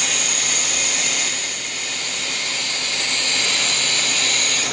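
FEMCO HL-35 CNC lathe drilling into a spinning nylon part: a steady high-pitched hiss and whine from the cut, with a fainter tone sliding slowly downward. The sound cuts off suddenly near the end.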